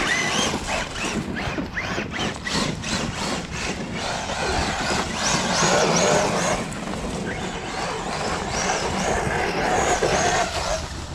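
Brushless electric motor of an RC monster truck running on 4S, whining up and down in pitch as it repeatedly speeds up and slows, with a steady rush of tyre and wind noise underneath.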